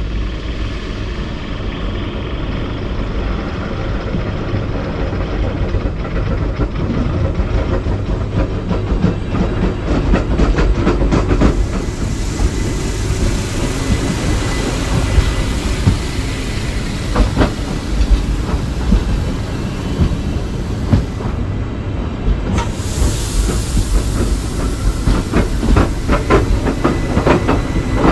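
A ZSSK class 495 electric rack railcar approaches and runs across a level crossing. Its rumble builds, then a rapid clatter of wheels over the track and crossing comes in with a high hiss. The hiss drops out for about a second before returning as the articulated cars keep passing.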